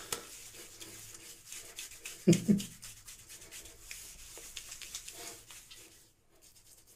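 Hands rubbing and massaging wet glycerin pre-shave soap into a stubbled scalp: a soft, steady rubbing that fades out about six seconds in, with a brief vocal sound a little after two seconds.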